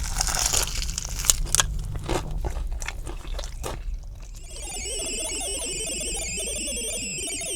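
A bite into crispy spicy fried chicken, its coating crackling and crunching, then chewing. From about halfway through, a steady, rapidly pulsing high-pitched electronic sound like an alarm runs alongside the chewing.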